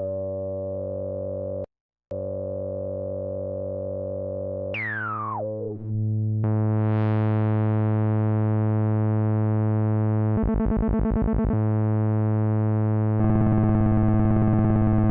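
Moog Werkstatt-01 analog synthesizer holding a buzzy, overtone-rich note that swoops down in pitch, cuts out briefly near two seconds, and later warbles rapidly as its LFO modulates the oscillator's pitch through the VCO mod section.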